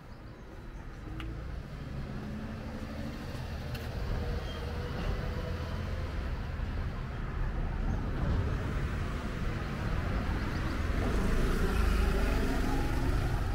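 A car on the street approaching, its engine rumble and tyre noise growing steadily louder.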